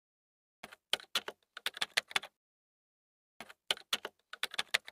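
Computer keyboard typing sound effect: two quick runs of key clicks with a pause of about a second between them.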